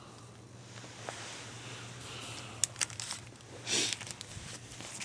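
Comic books being handled during an unboxing: soft rustling with a few sharp clicks, and a louder rustle near the end as one issue is set aside and the next picked up. A faint steady hum runs underneath.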